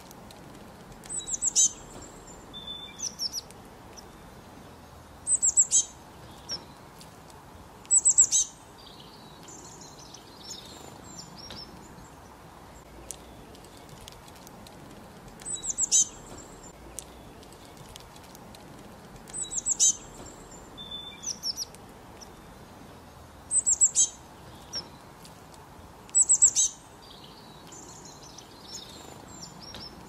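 A small songbird giving short bursts of high, rapid chirps, about eight bursts spread a few seconds apart, over a faint steady background hiss.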